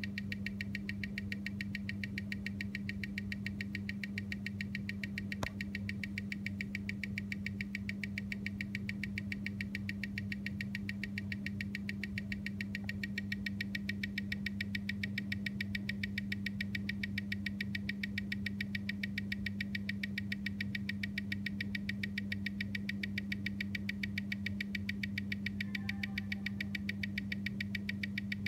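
Omega calibre 8500 co-axial watch movement ticking in a timegrapher's microphone stand: a fast, perfectly even tick at 25,200 beats per hour (seven a second), with a steady electrical hum underneath. The even beat is that of a movement running well, read as +3 s/day, 342° amplitude and 0.1 ms beat error.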